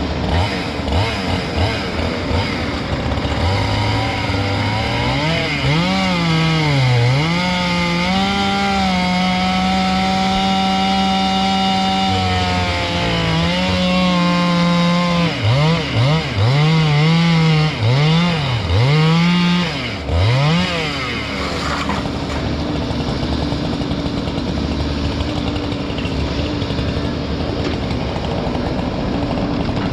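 Two-stroke chainsaw revving up and down repeatedly and held at full throttle for a few seconds at a time while cutting up a fallen log. For the last third the engine settles into a steadier, lower drone.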